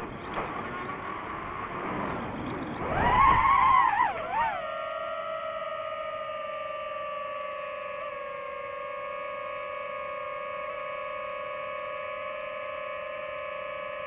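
DJI FPV drone's motors and propellers whining. The pitch wavers and climbs sharply, loudest about three seconds in as the drone levels out, then settles into a steady whine that sinks slightly while it holds a hover.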